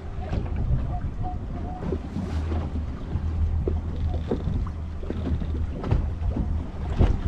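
Fishing boat's engine running with a steady low hum, under wind buffeting the microphone, with scattered knocks and a louder thump near the end.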